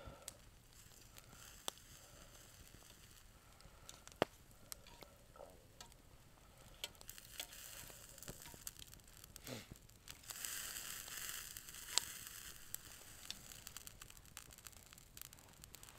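Faint campfire with meat cooking on a wire grill rack over it: low crackling and sizzling, with scattered sharp clicks and a louder hiss for a couple of seconds about ten seconds in.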